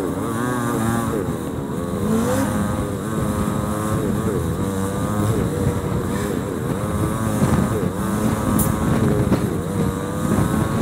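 Royal Enfield Himalayan single-cylinder motorcycle engine running in heavy traffic, recorded from the bike and played back at four times speed. The engine note rises and falls quickly and over and over, with the noise of the surrounding traffic underneath.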